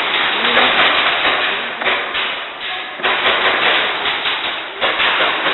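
Rapid, dense clatter of airsoft guns firing, mixed with sharp taps and thuds of BBs and impacts on hard surfaces.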